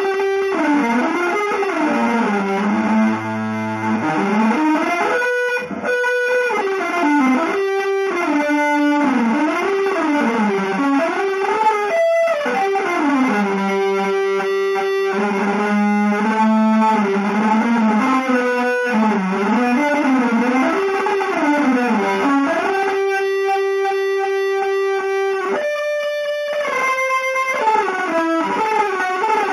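Electric guitar playing a fast single-note line of quick rising and falling runs, broken by a few held notes.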